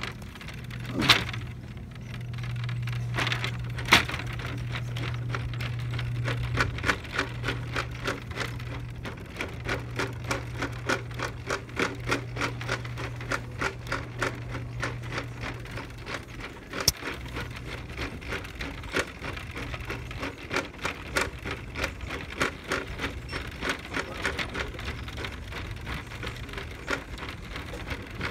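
Plastic shopping cart rattling as it is pushed across a store floor, its wheels and basket clicking about twice a second, with two sharper knocks in the first few seconds.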